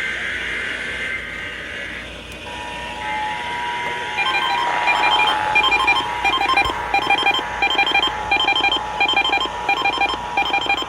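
Emergency Alert System two-tone attention signal, a steady pair of close tones that comes in about two and a half seconds in. From about four seconds in it is overlaid by a fast electronic beeping in short, evenly repeated groups, the alert tones heralding the flood watch message.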